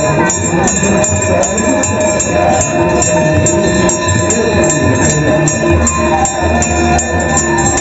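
Devotional music with a steady beat of sharp strikes, two or three a second, over sustained tones.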